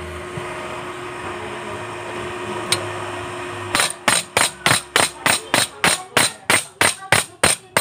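A steady hum, then, about halfway through, a fast, even run of sharp metal-on-steel knocks, about four a second: a welder's chipping hammer with wire brush striking stick-weld beads on a steel strip to knock off the slag.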